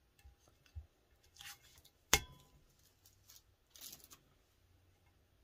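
Tape and sublimation paper being peeled and crinkled off a freshly pressed sublimation tumbler by gloved hands, in scattered short rustles, with one sharp knock about two seconds in.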